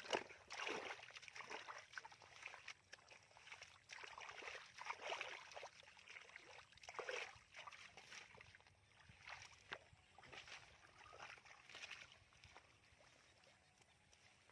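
Irregular sloshing and splashing of shallow muddy water as hands work through it, fainter toward the end.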